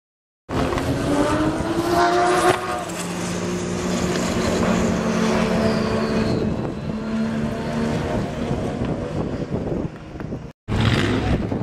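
Porsche 935 race car's turbocharged flat-six engine accelerating, its pitch climbing and then dropping at an upshift about two and a half seconds in, then pulling on steadily. The sound cuts out briefly near the end and resumes.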